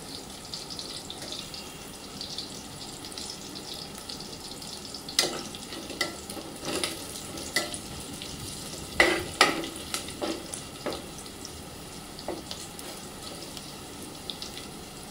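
Onion, garlic and whole spices sizzling in hot oil in a cooking pot, with a spoon stirring and knocking against the pot now and then, loudest about nine seconds in.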